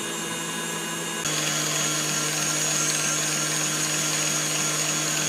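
Stand mixer running at top speed, its wire whisk beating Swiss meringue in a glass bowl: a steady motor hum with a high whine. A little over a second in it steps up slightly louder and holds steady.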